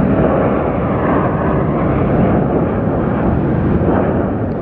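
Jet airliner's twin turbofan engines at takeoff power as it rolls down the runway and lifts its nose: a loud, steady rumbling noise.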